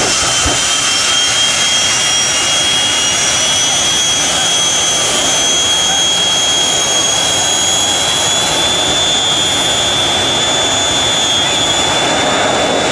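Jet dragster's jet engine running loud and steady: a dense rushing noise with a high whine that slowly creeps up in pitch.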